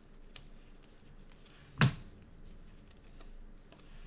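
2020 Mosaic football cards being flipped through in gloved hands: faint ticks of card edges, with one sharp snap of a card about two seconds in.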